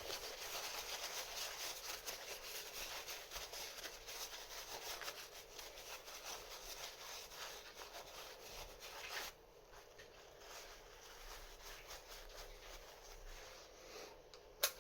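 Paper towel rubbing and wiping over a small oily part of a combination lock, a spacer, to clean off oil and grime. The scratchy rubbing runs for about nine seconds, then stops, and a single small click comes near the end.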